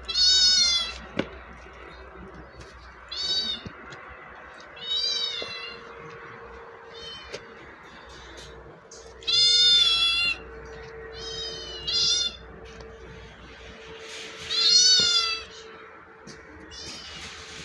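Kittens meowing repeatedly: about nine short, high-pitched calls, each under a second, every couple of seconds.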